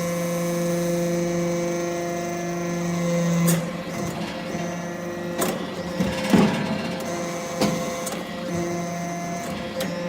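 Hydraulic metal-chip briquetting press running: a steady pitched hum from its hydraulic power unit that drops away about a third of the way in, then several sharp clunks and knocks, the loudest a little past halfway.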